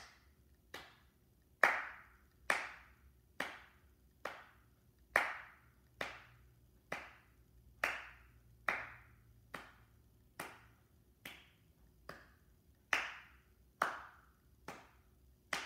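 Hand claps by one person, a slow even beat of a little under one clap a second, about twenty in all: a counting beat, one clap for each number from one to twenty.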